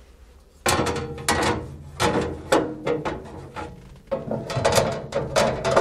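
Metal parts and hand tools clanking and knocking against a Robland X31 combination woodworking machine being assembled, an irregular run of sharp strikes, each with a short metallic ring, starting about a second in.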